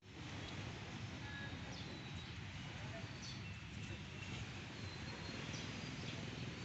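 Birds chirping: scattered short high chirps and whistles over a steady faint background hiss and low rumble.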